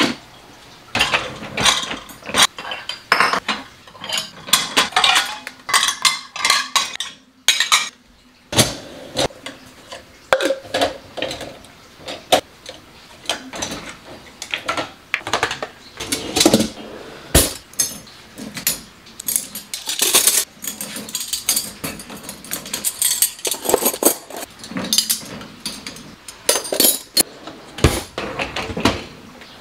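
Clean dishes and cutlery clinking and clattering as a dishwasher is unloaded: the door dropping open, then plates, plastic containers and silverware knocked together as they are lifted out of the wire racks, in an irregular run of sharp clinks.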